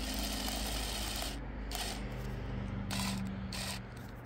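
Quiet handling noise: a hand gripping and rubbing the plastic drill-mounted chainsaw attachment, over a faint steady low hum.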